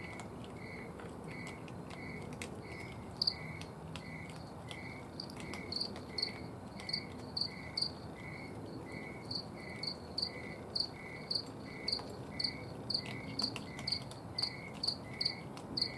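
Two crickets chirping. One lower-pitched chirps steadily about one and a half times a second. A louder, higher-pitched one comes in about three seconds in and settles to about two chirps a second, with faint scattered clicks underneath.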